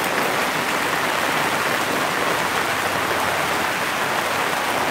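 Steady rain falling on a wet paved patio.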